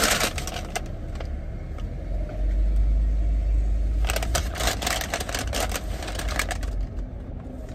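Brown paper takeout bag crinkling and rustling as it is handled, in a short spell at the start and a longer one from about four seconds in. A low rumble runs between the two spells.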